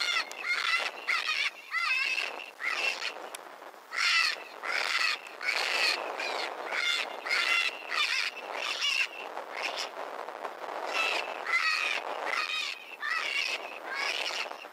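Electronic predator caller playing a rabbit distress call: a steady run of high, wavering squealing cries, one after another with short gaps.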